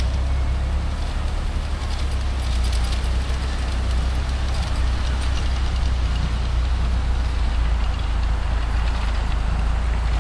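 7¼-inch gauge miniature steam locomotive hauling a passenger train past on the track, heard under a steady low rumble.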